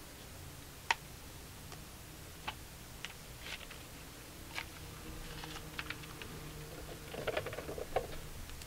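Small clicks and taps of hot rollers and their plastic pins being pulled out of hair and set down, scattered single clicks with a quick cluster of them near the end, over a low steady hum.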